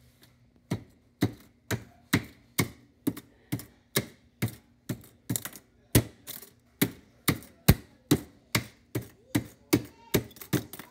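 Knife chopping down again and again on the broken remains of a wireless mouse: sharp knocks, about two a second, in an even rhythm.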